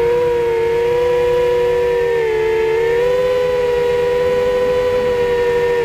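Quadcopter's electric motors and propellers whining steadily, heard through the camera mounted on the drone itself. The pitch shifts up and down slightly about two seconds in.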